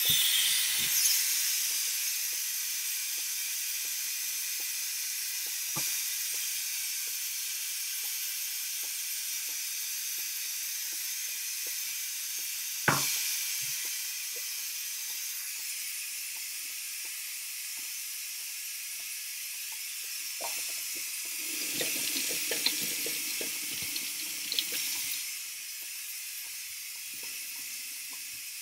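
Electric pressure cooker venting steam through its pressure-release valve: a steady hiss as the pressure is let out after cooking. A sharp knock about halfway through and a few seconds of rustling handling noise later on.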